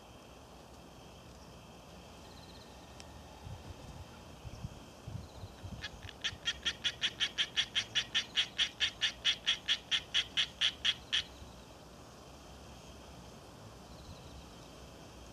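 An animal calling: a run of short, high, evenly spaced chirps, about five a second, lasting about five seconds and then stopping suddenly. A few dull low knocks come just before it.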